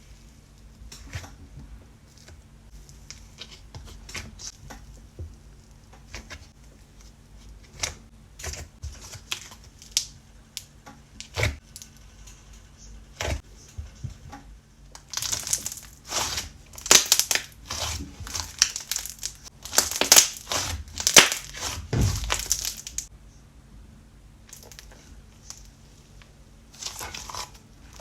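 Close crinkling and crackling from something being handled, in irregular bursts that get busier and louder past the middle, then ease off.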